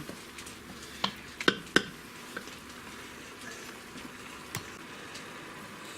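Ground beef and beans sizzling softly in an Instant Pot insert on sauté mode, with a few sharp taps or clicks between one and two seconds in and one more about four and a half seconds in.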